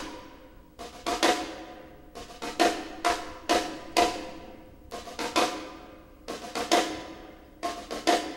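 Music: drums playing a sparse pattern of sharp struck hits, each ringing briefly, two or three to the second.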